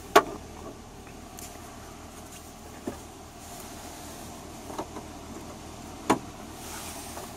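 A handful of sharp plastic clicks and knocks, the loudest just after the start and about six seconds in, as a hand-held scan tool's cable is plugged into the OBD-II diagnostic port under the dash. A steady low hum runs underneath.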